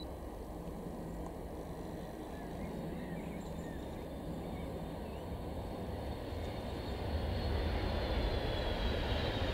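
Boeing 757 jet airliner landing and rolling out on the runway, its engines a steady rumble. About seven seconds in the engine noise grows louder, with a high whine over it.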